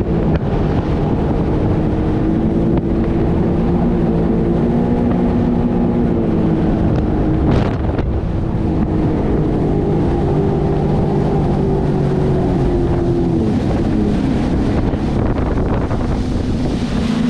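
Sea-Doo personal watercraft engine running at speed, its pitch drifting a little up and down, with wind buffeting the microphone and a brief gust about halfway through.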